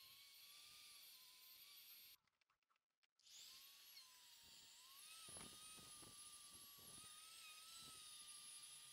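Near silence: a faint, wavering high whine over hiss. It drops out almost completely for about a second a little over two seconds in, and a few faint low knocks follow in the second half.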